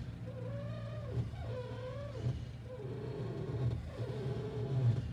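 A car's front suspension making a noise: a wavering tone that swells and fades about four times, over a steady low hum. The technician is tracing the noise to the left front, close to the lower ball joint.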